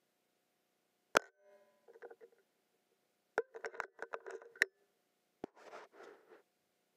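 Single shot from a .22 PCP air rifle, the Walther Reign M2, a sharp crack about a second in. It is followed by scattered small clicks, a quick run of sharp clicks a couple of seconds later, and a short rustle near the end.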